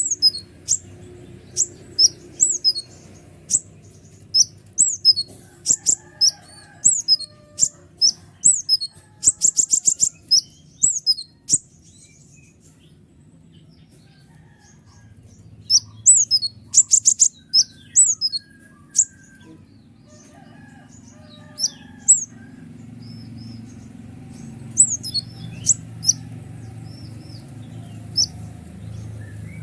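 Kolibri ninja sunbird calling: a fast series of sharp, high chirps that drop in pitch, about two a second, broken by rapid trills twice and by a pause of a few seconds near the middle.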